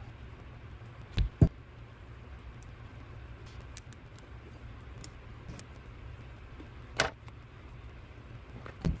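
Metal parts of a Fiat 850's twin-barrel carburetor clicking and knocking as it is handled and turned over by hand, with two quick knocks about a second in, another around seven seconds and one near the end, over a steady low hum.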